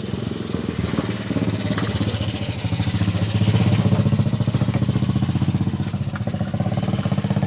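Wing van truck's engine idling with a steady, rapid low pulse, getting a little louder about three seconds in, as it runs to drive the hydraulics for a leak test of a new hose connector.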